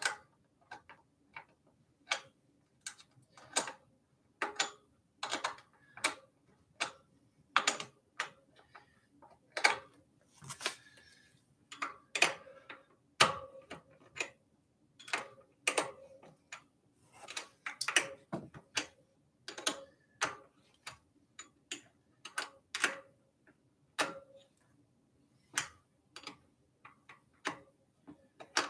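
Irregular sharp metal clicks and taps, about one or two a second, from hand work with a tool and parts while fitting a fat-tire e-bike's front wheel into its fork.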